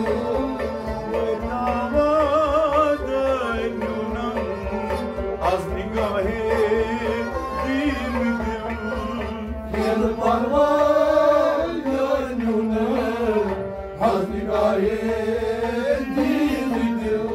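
Kashmiri Sufi song: a singer's melody wavering and sliding over a steady instrumental drone, with hand-drum percussion.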